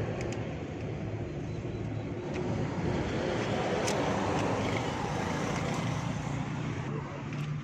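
Steady rumble of a motor vehicle running, with a few faint sharp metallic clicks from a screwdriver working the washer off a car's rear wheel hub.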